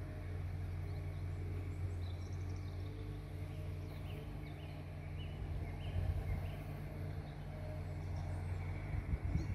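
Steady low outdoor rumble with faint, scattered bird chirps in the middle.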